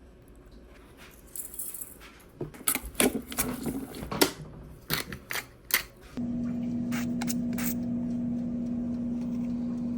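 Kitchen clatter of knocks and clicks from utensils and dishes being handled. About six seconds in, a small kitchen appliance motor starts and runs with a steady hum at a constant pitch.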